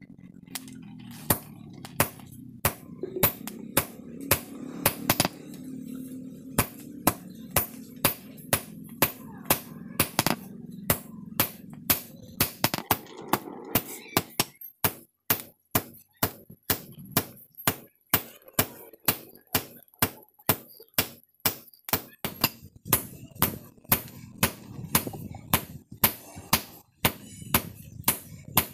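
Hand hammer forging a red-hot steel knife blade on a round steel anvil: steady blows about two a second, each ringing sharply off the metal. A low background rumble sits under the blows and fades about halfway through.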